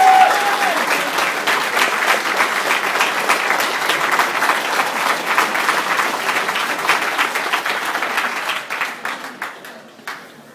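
Large audience applauding, fading away over the last couple of seconds. A drawn-out shouted voice carries over the first second.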